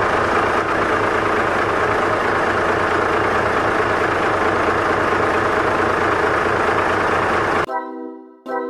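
Steady truck engine idling, a constant rumbling drone with a low hum, cutting off abruptly near the end as music with sustained tones starts.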